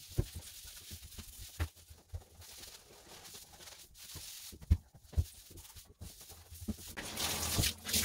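Faint scrubbing of a blue EnviroScrub pad against a shower wall and tub, with scattered soft knocks and a louder stretch of scrubbing about seven seconds in.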